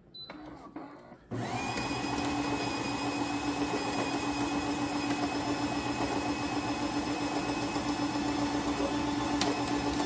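A short beep as the espresso button is touched, then about a second in the Philips 3200 Series espresso machine's built-in grinder motor starts and runs with a steady whine. The owner says the grinding is not working.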